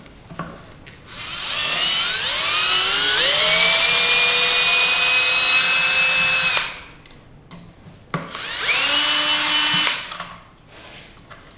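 Power drill with a hex bit backing out the cylinder head bolts of an air compressor pump: a run of about five seconds whose whine rises as the motor spins up and then holds steady, then a second short run of about a second.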